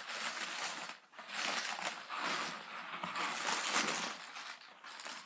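Paper rustling and crinkling as a cardboard shoebox is opened and its contents handled, in several swells of a second or so each.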